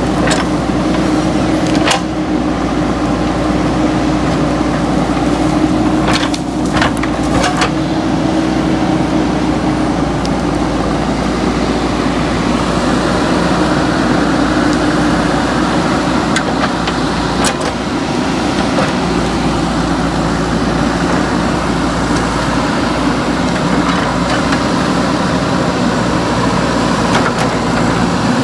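JCB 3DX backhoe loader's diesel engine running steadily under working load, its pitch shifting a few times, with a few sharp knocks about two seconds in and again around six to seven seconds in.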